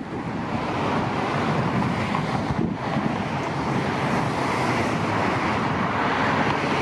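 Wind on the microphone: a steady rushing noise.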